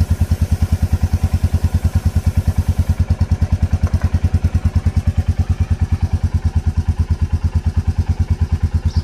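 Royal Enfield Meteor 350's single-cylinder four-stroke engine idling with an even beat, about nine pulses a second. For the first three seconds an aerosol can of chain lube hisses as it is sprayed onto the chain.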